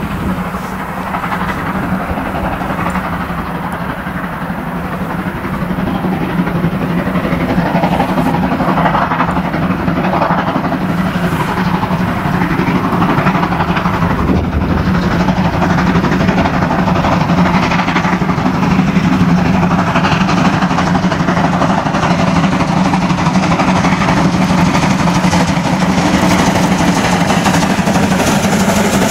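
A DR class 52.80 steam locomotive, with a second locomotive behind it, approaching under load with a long, heavy coal train. The sound grows louder over the first several seconds and then holds, a steady low drone under a spread of exhaust and rail noise.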